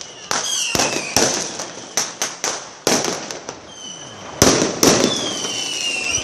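Fireworks going off in quick succession: repeated sharp bangs and crackles, with whistling tones that slide downward in pitch. The loudest bangs come about four and a half seconds in.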